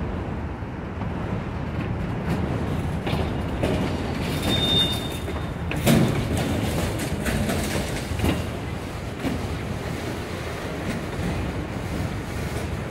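Freight train of autorack cars rolling past close by: a steady rumble of wheels on rail with frequent clanks and knocks. A brief high wheel squeal comes about four and a half seconds in, and a sharp bang about six seconds in.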